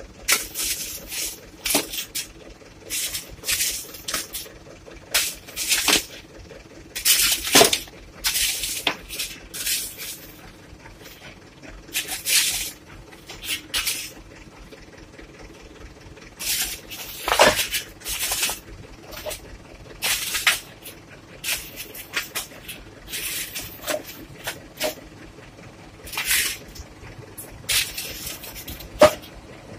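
Many short, irregular hissing bursts, high in pitch, over a faint steady drone from approaching heavy logging trucks.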